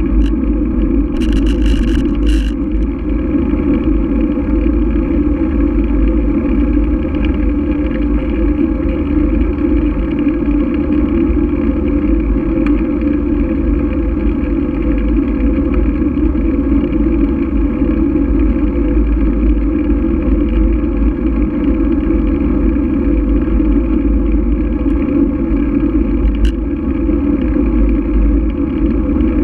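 Steady rumble of wind and tyre noise on a GoPro carried along asphalt on a bicycle, dull and lacking in treble, with no changes in speed.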